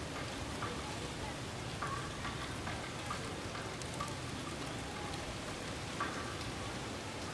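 Steady outdoor wind hiss around clothes drying on a line, with short faint calls scattered throughout.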